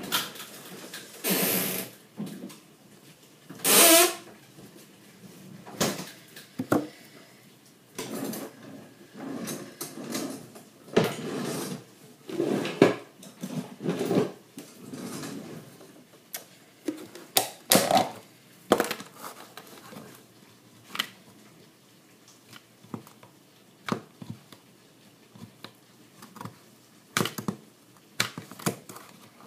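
Kitchen handling noises: irregular knocks, clicks and clatter of dishes, utensils and containers being moved about at the counter, with two louder rushing bursts within the first four seconds.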